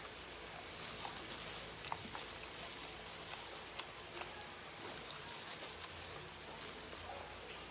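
Soft crackling and rustling as a hand in a thin plastic glove handles pieces of breaded boneless fried chicken on a plate, with scattered small clicks and snaps, one sharper snap about two seconds in.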